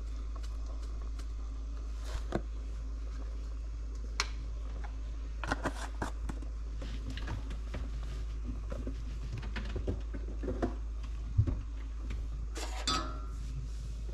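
Clicks and taps of plastic seasoning jars and lids being handled and set down on a kitchen counter, with a short rattle near the end as the loudest sound, over a steady low hum.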